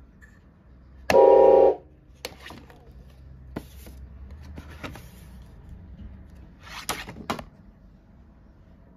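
Hand-cranked organ sounding one short chord about a second in, followed by a few scattered clicks and knocks as cardboard music is handled at the reading frame.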